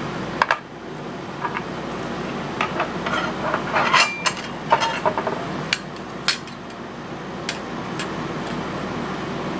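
Sharp metallic clicks and clinks of a mortise lock set's parts being handled, in a scattered run that is busiest around the middle, over a steady background hum.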